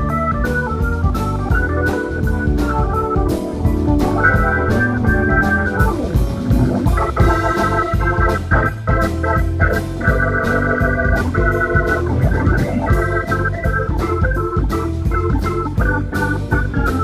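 Live band playing, with an organ out front running quick phrases of chords and notes over bass guitar and a steady drum beat.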